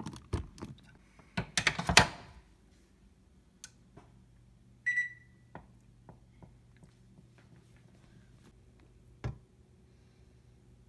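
Power plug pushed into a wall outlet, with sharp plastic clicks and cord rattles, then a single high electronic beep. Small clicks follow as the electric griddle's temperature dial is turned, over a faint low steady hum, and there is one soft thump near the end.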